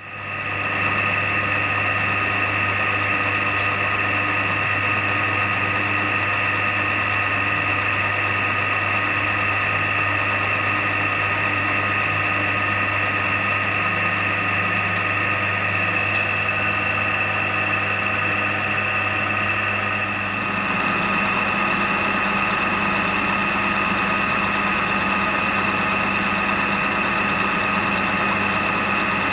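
Milling machine running steadily as it mills two hinge blanks clamped together in the vise. About two-thirds of the way through, the sound shifts: the low hum drops away and a higher whine comes in.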